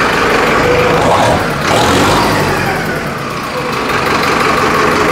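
Diesel tractor engine running, offered for the listener to judge its sound; its pitch sinks after about two seconds and climbs again near the end, as when the throttle is eased and reopened.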